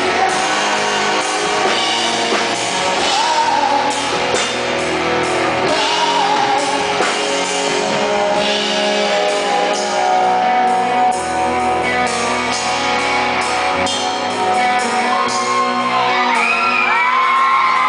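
Live rock band playing loudly in a large hall: a male lead singer sings over electric guitar and drums. Near the end, high shouts rise over the music.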